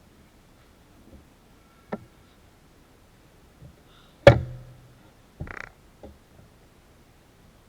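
A few separate knocks and clicks. The loudest is a sharp knock about four seconds in that rings briefly, followed by a short scraping burst and a small click.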